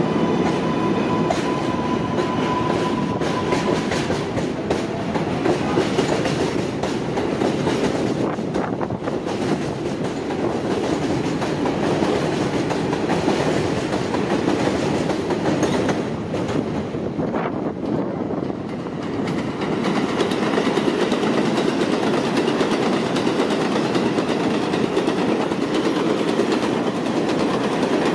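R188 7 subway trains running through the station, their wheels clattering on the rails. A thin steady whine is heard over the first few seconds. The noise eases briefly about two-thirds of the way through, then builds again as a second train runs past on the far track.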